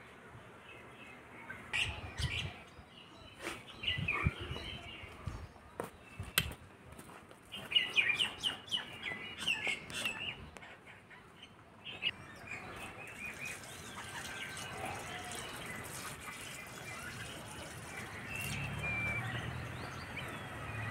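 Small birds chirping in quick bursts of short calls, busiest in the first half. A few sharp knocks and clinks come from a clay water pot and its lid being handled. A steadier low noise rises near the end.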